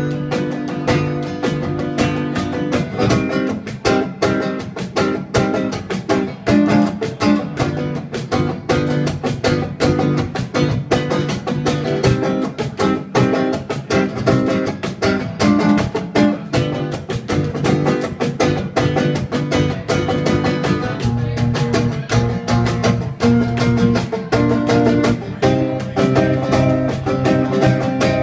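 Acoustic guitar strummed steadily, with a cajon played by hand keeping the beat.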